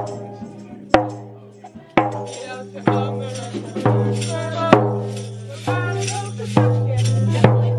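Classroom percussion group: a large frame drum struck with a soft mallet about once a second, each stroke ringing on, with tambourines jingling along. A steady low note sounds underneath.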